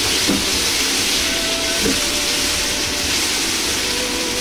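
Strips of pork frying gently in an oiled carbon-steel wok (Chinese wok) as they are stirred apart, a steady sizzling hiss.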